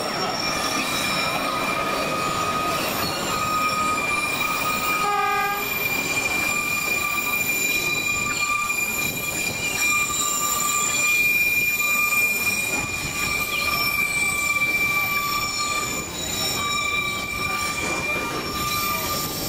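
Narrow-gauge train's steel wheels squealing steadily against the rails as the cars round curves, over the running rumble of the train. A short horn toot sounds about five seconds in.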